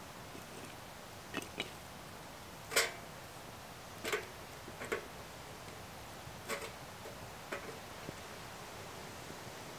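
Wood fire crackling in a small Bond Stove Mini camp stove under a metal kettle: about eight sharp, irregular pops, the loudest just under three seconds in.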